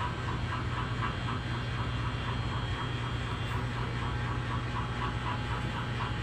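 Steady low electric hum of small motors running, with a faint rapid ticking repeating about four times a second.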